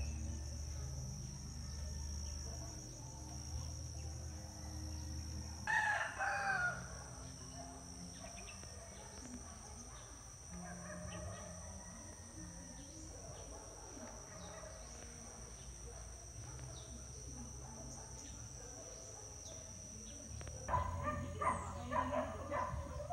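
A rooster crows once, about six seconds in, over a steady high-pitched insect drone. Near the end the drone stops and a dog starts barking in quick short bursts.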